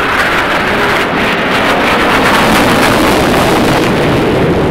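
Fighter jet flying past, its engine noise loud and steady, swelling slightly to a peak about two to three seconds in.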